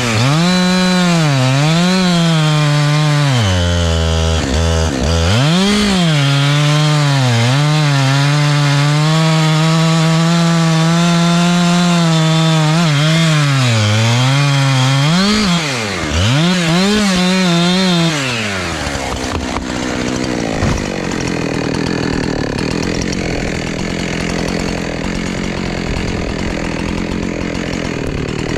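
Two-stroke chainsaw cutting wood, its engine note repeatedly dipping and recovering as the chain bites and the throttle is worked. About eighteen seconds in the engine tone drops away and a quieter, rough noise remains until the saw revs up again at the very end.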